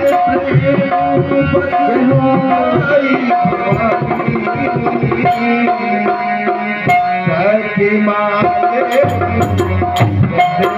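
Instrumental interlude of a Hindi devotional song: tabla keeping a steady rhythm under a melody instrument playing held notes with short glides.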